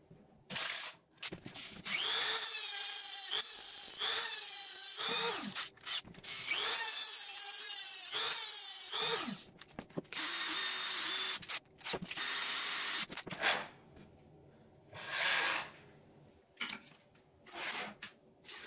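Electric drill running in several bursts of a few seconds each, cutting into wood; its motor whine rises as it starts and falls away as it stops.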